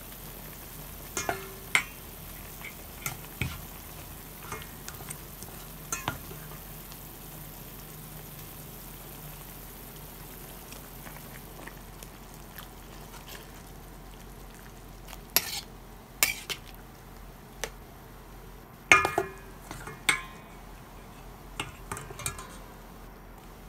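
Kare-kare stew simmering in a stainless steel pot with a steady hiss that drops away about halfway through. A metal spoon stirs it and clinks against the pot now and then, in clusters near the start and near the end.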